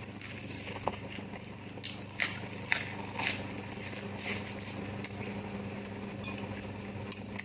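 A person eating close to the microphone: a run of sharp crunches and bites, mostly between one and four and a half seconds in, over a steady low hum.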